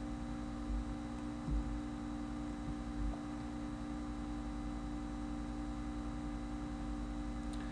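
Steady electrical hum over faint background noise, with a few soft low bumps about a second in, at a second and a half and at three seconds.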